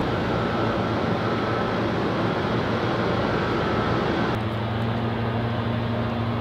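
Steady rushing background noise. About four seconds in it turns duller and a low steady hum comes in.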